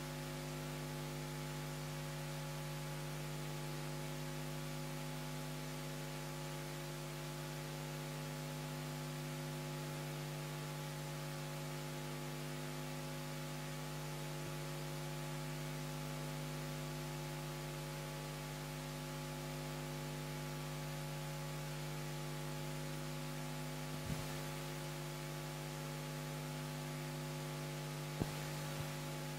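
Steady electrical mains hum: a low buzz with a ladder of overtones over faint hiss, with two faint clicks toward the end.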